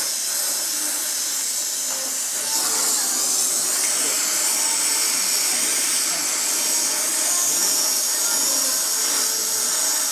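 Gas brazing torch flames hissing steadily while brazing the stay bridge of a steel bicycle frame; the hiss grows slightly louder about two and a half seconds in.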